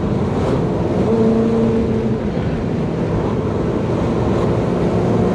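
Toyota 1UZ-FE V8 running steadily with road noise, heard inside the car's cabin while cruising in top gear. A clear steady drone stands out for about a second, starting about a second in.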